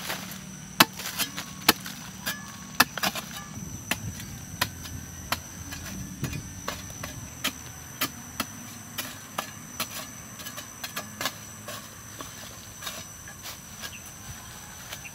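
Long-handled metal digging blade chopping into a mound of hard, dry earth: a run of sharp strikes about one or two a second, softer and sparser in the second half, with loosened soil crumbling.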